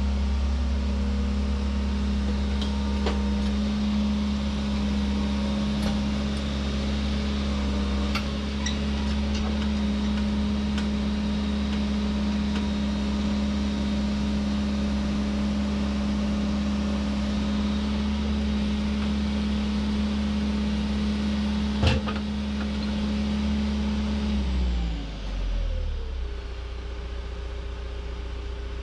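John Deere 120 excavator's diesel engine running steadily, then throttled down to a lower idle about 25 seconds in, with a single sharp knock shortly before.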